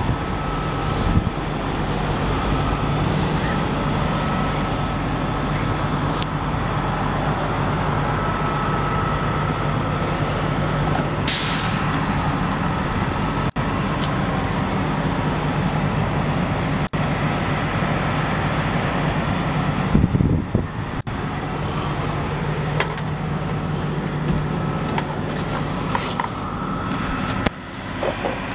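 2004 GMC C5500 shuttle bus engine idling steadily in park, a continuous low rumble with a faint steady whine above it. A single thump comes about twenty seconds in.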